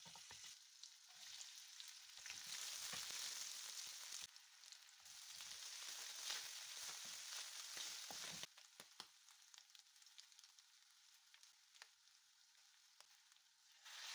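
Faint sizzling of ginger-garlic paste, then shredded chicken and vegetables, frying in oil in a metal pan, with a wooden spoon scraping and stirring. The sizzle drops off about eight seconds in.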